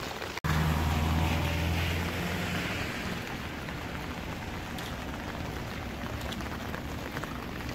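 Heavy rain falling steadily, with a brief dropout just under half a second in. After the dropout a vehicle's low engine hum is loud for a couple of seconds, then fades out.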